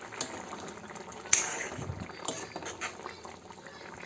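Thick, reduced garlic-tamarind gravy (poondu kuzhambu) simmering in a pan, bubbling with irregular small pops, with one sharp louder pop about a second in.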